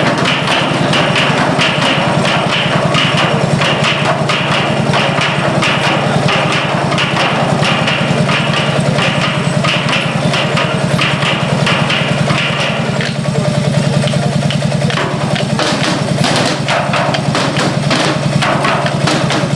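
Percussion group drumming on empty oil barrels with wooden sticks in a quick, even beat, over the steady low hum of a running stationary engine. The drumming thins out for a couple of seconds past the middle, then picks up again.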